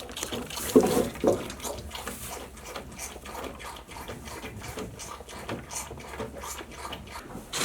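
A young animal sucking and slurping milk from a bottle: a quick run of wet sucking clicks, with a few louder gulps about a second in.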